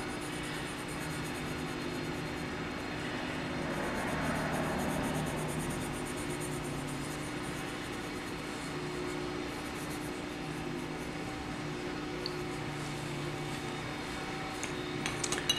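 Colored pencil shading on paper over a steady low background hum, the scratching a little stronger about four seconds in. Near the end, a few light clicks as pencils are handled.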